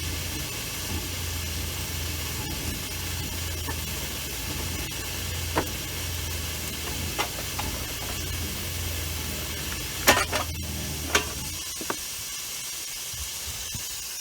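Refrigerant hissing steadily out of a freshly started freon leak in a Carrier heat pump system, under a low hum that stops near the end. A few sharp clicks, the loudest about ten seconds in.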